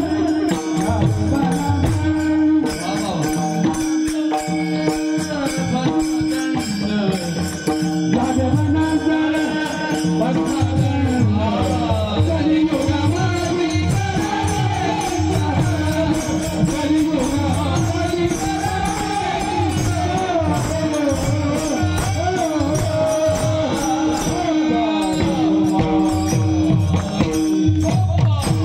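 Marathi devotional kirtan singing: a voice carries a bending melody over a steady held drone, with jingling hand percussion and a drum keeping the rhythm.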